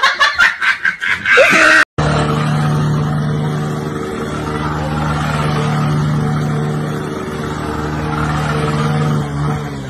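A quick run of sharp smacks. After a cut about two seconds in, a motorcycle engine runs at a steady speed, its pitch wavering near the end.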